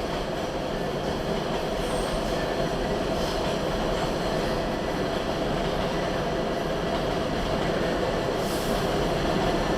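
N line subway train running on the tracks: a steady, even train noise.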